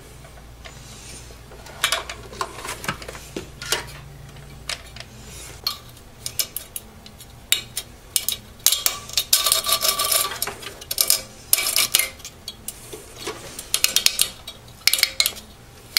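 Irregular clicks, clinks and scraping of metal and plastic computer hardware being handled, with a few longer scraping stretches in the middle.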